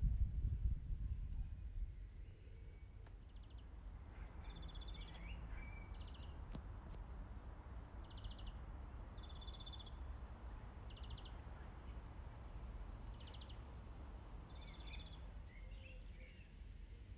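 Songbirds singing short trilled phrases, repeated every second or two, over a low rumble of wind on the microphone that is heaviest in the first couple of seconds.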